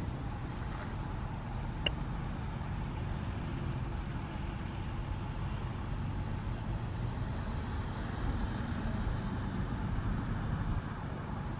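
Steady low background rumble, with one short click about two seconds in.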